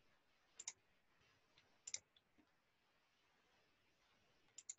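Faint computer mouse clicks: three pairs of short, sharp clicks, about half a second in, about two seconds in, and near the end, over near silence.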